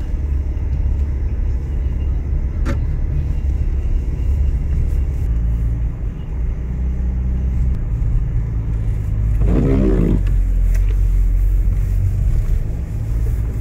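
Car driving, with a steady, loud low engine and road rumble. A sharp knock comes about two and a half seconds in, and a brief wavering pitched sound about ten seconds in.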